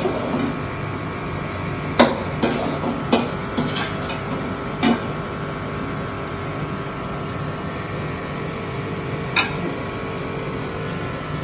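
Steel slotted spoon knocking and scraping against a steel cooking pan and a glass serving bowl as curry is scooped out: a handful of sharp clinks, most in the first five seconds and one more about nine seconds in, over a steady hum.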